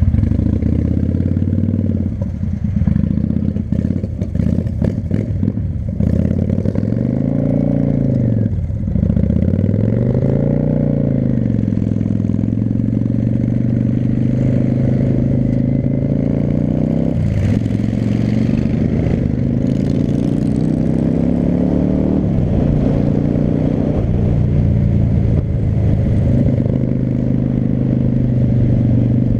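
V-twin cruiser motorcycle engine heard from the rider's seat, pulling away from a stop and gaining speed through the gears. The engine note rises and falls several times, drops sharply at each change, climbs steadily after about the middle, then settles into a steady cruise.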